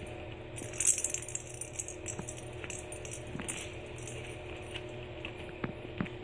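Kittens scrabbling and playing against a mesh pop-up playpen: scattered light clicks, rustles and jingly rattles, with a louder jingly rustle about a second in. A steady low hum runs underneath.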